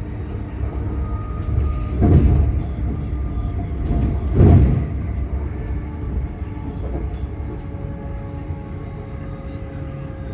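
Class 385 electric multiple unit running, heard inside the carriage: a steady low rumble with a thin motor whine whose pitch slowly falls in the second half. Two heavy thumps come about 2 and 4.5 seconds in.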